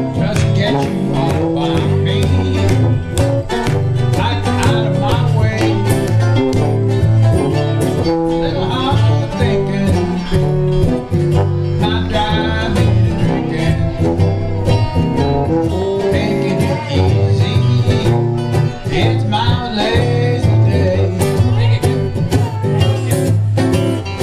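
Live acoustic bluegrass-style band playing, with guitar and banjo picking over a steady bass line.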